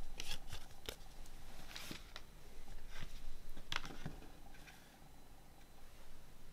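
Handling noise of a cardboard CD digipak: the disc slid into its sleeve, the case closed and set down on a wooden tabletop, heard as a scatter of short rustles and clicks that thin out over the last couple of seconds.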